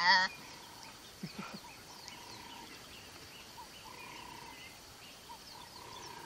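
A young antelope gives one short, loud, quavering bleat right at the start, with a leopard closing in on it. Faint bird calls and chirping go on in the background.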